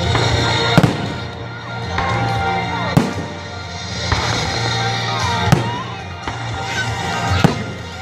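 Aerial firework shells bursting: four loud bangs about two to two and a half seconds apart, with fainter pops between them.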